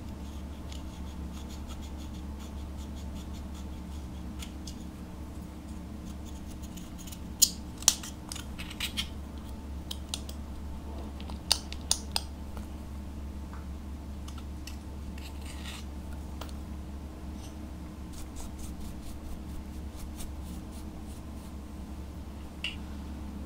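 Metal spatula scraping and chipping pressed eyeshadow out of a small plastic compact: a run of light scratching clicks, with a few sharper clicks near the middle, over a steady low hum.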